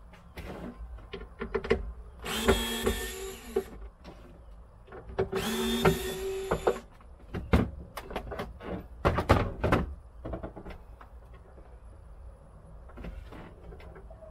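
Cordless drill-driver spinning in two short runs of about a second and a half each, backing out trim fasteners. Sharp clicks and knocks follow as plastic trim is lifted out.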